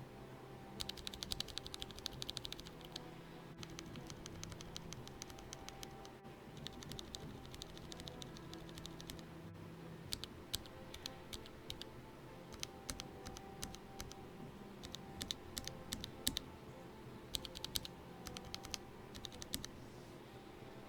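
Typing on a mechanical keyboard fitted with lubed, filmed linear switches and PBT keycaps (NK65 Entry Edition): bursts of quick keystrokes broken by short pauses, the fastest run about a second in.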